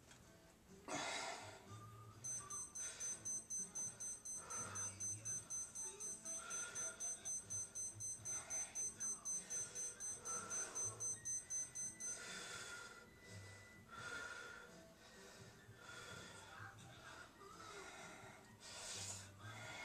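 High-pitched electronic beeping, about two beeps a second, starts about two seconds in and stops about halfway through. Between and after the beeps come heavy, puffing breaths from a man straining through a slow rep on a hip abduction machine.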